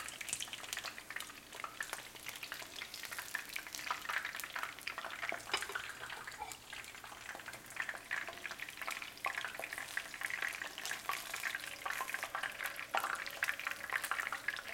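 Battered chicken nuggets deep-frying in hot vegetable oil in a frying pan: a steady, dense crackle and spatter of the oil.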